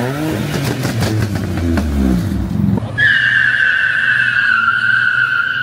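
A car engine revving, its pitch sweeping up and down, for about three seconds. Then tyres start squealing abruptly as a V6 car does a burnout, a steady two-toned screech that falls slightly in pitch.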